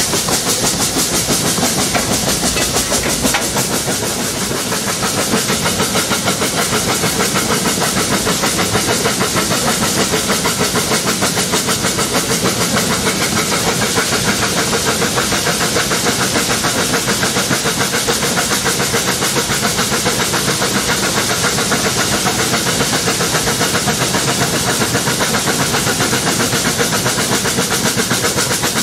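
The narrow-gauge steam tank locomotive The Countess, a Beyer Peacock 0-6-0T, running along the line with a steady, rapid exhaust beat and the hiss of steam, heard close up from the engine itself.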